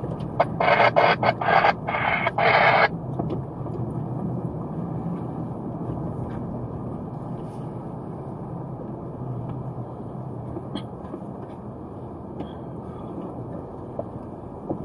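Car moving slowly, its engine and road noise a steady low hum inside the cabin. In the first three seconds there are several loud, abrupt bursts of hissing noise.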